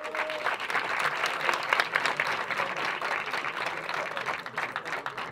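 Crowd clapping densely in a cinema hall, right after a chanted anthem ends; the last sung note fades out in the first half second.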